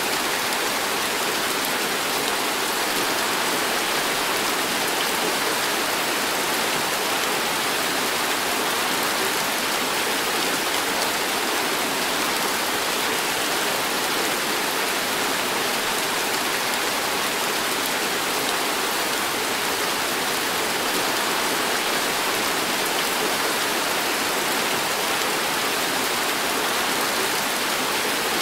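Heavy tropical rain pouring down steadily onto pavement and plants: a dense, even hiss that does not let up.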